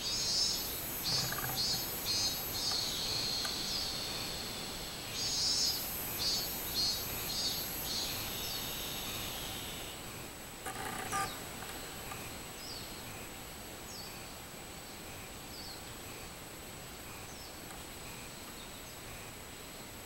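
Robust cicadas (minmin-zemi, Hyalessa maculaticollis) singing their pulsed song. Two runs of repeated high calls, about two a second, each fade out, leaving only faint calls in the second half. A short, harsher sound comes about halfway through.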